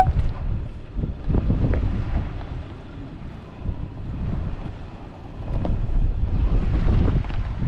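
Wind buffeting the microphone in gusts, loudest at the start and again near the end, over the low rumble of a Mitsubishi Pajero crawling over a rocky trail.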